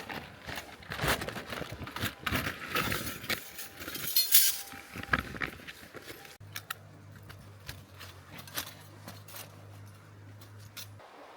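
Small hard objects being handled, with a run of metallic clinks, rattles and knocks. About six seconds in these stop and a steady low hum takes over, cutting off shortly before the end.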